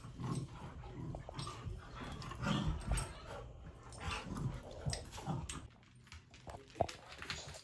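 A dog making irregular bursts of vocal sounds, with scattered short clicks and knocks; the sounds drop away briefly about six seconds in.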